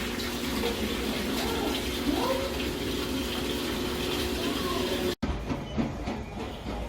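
Steady rush of running water, which cuts off abruptly about five seconds in.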